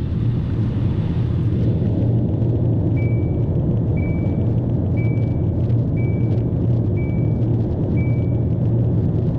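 Steady low rumble of a vehicle heard from inside the cabin. About three seconds in, six short identical high-pitched beeps sound, one a second.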